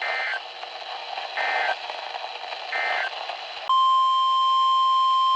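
NOAA Weather Radio alert heard through a radio receiver: three short bursts of SAME digital header tones, a warbling data screech, about a second and a half apart, then the steady 1050 Hz warning alarm tone from just before the four-second mark, cutting off sharply near the end. The tones signal the start of a new severe thunderstorm warning, over a steady radio hiss.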